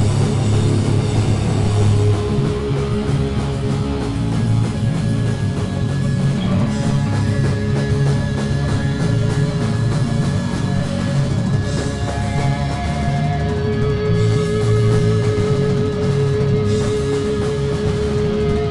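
A rock band playing live and loud: electric guitar through amplifier stacks with the full band behind it, with a long held note coming in about two-thirds of the way through.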